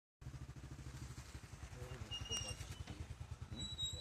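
Excavator diesel engine running at idle, an even low pulsing beat. Two brief high-pitched tones sound over it, one about halfway and one near the end.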